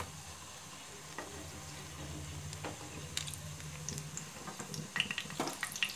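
Onion kachoris shallow-frying in oil in a nonstick pan, a soft steady sizzle, with light clicks and taps as a spatula and spoon turn one over, most of them about five seconds in.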